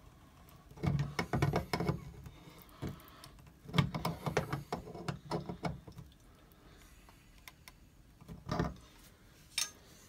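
Channel-lock pliers gripping and turning a washing-machine hose's metal coupling on a faucet: two spells of metal clicks and scrapes, about a second in and again around four to five seconds, then a couple of single knocks near the end.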